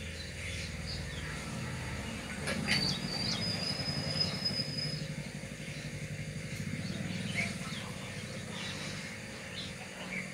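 A steel vessel clinks about two and a half seconds in and rings on thinly for a couple of seconds as a drink is handled and poured between steel vessels, over a steady low rumble.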